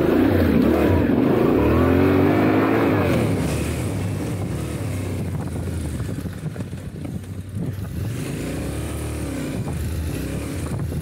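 Yamaha Ténéré 700's parallel-twin engine being ridden off-road, revving up and down. The revs swing hardest in the first few seconds, then it runs quieter and more steadily, with one more rise and fall near the end.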